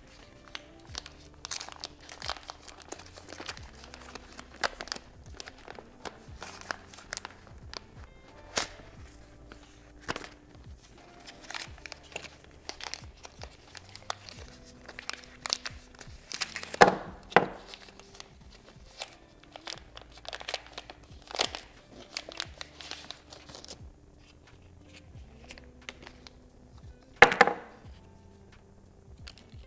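Packaging being handled while unboxing: crinkling and tearing of wrapping, with many small clicks and taps and two louder knocks, over background music.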